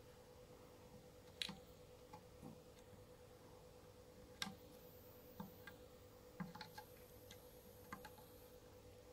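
Near silence with a faint steady hum and a dozen or so faint, irregular small ticks and clicks as solder wire and a soldering iron are worked against header pins on a circuit board.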